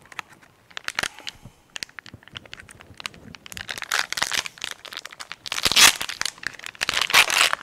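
Plastic packet of Vienna sausages being torn open and crinkled by hand, in irregular crackling bursts, loudest about four and six seconds in and again near the end.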